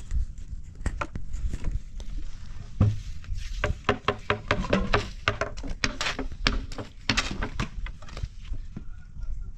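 Irregular knocks and taps, many in quick succession, busiest in the middle.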